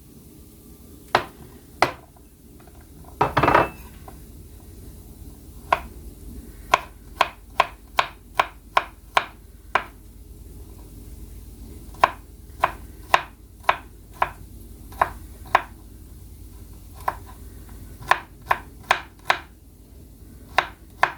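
Kitchen knife chopping garlic cloves on a cutting board: sharp knocks, sometimes single and sometimes in quick runs of two or three a second, with one longer, noisier sound about three seconds in.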